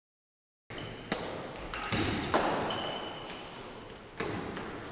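Badminton play on an indoor hard court: sharp racket or shuttlecock hits about three times, with short high sneaker squeaks on the floor between them, all echoing in a large hall. The first moment is silent.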